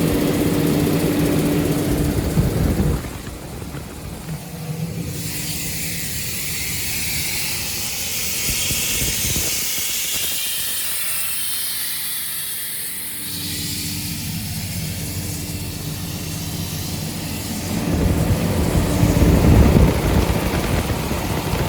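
Caterpillar 3306 inline-six diesel of a Sullair 750 portable air compressor running steadily. About three seconds in its note falls away, and a loud hiss of compressed air blowing off takes over, showing the compressor is producing air. Near the end the engine rumble comes back up louder as the hiss fades.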